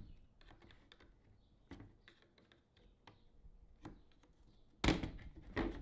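Light plastic clicking and tapping as a flat-blade screwdriver pries apart the plastic clips that hold an air vent in a car's radio bezel, with two louder plastic clacks less than a second apart near the end as the vent comes free.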